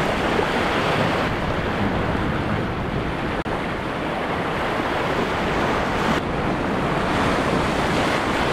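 Choppy sea surf washing and breaking around the rocks of a jetty: a steady rushing wash on a rising tide in rough conditions, with wind buffeting the microphone.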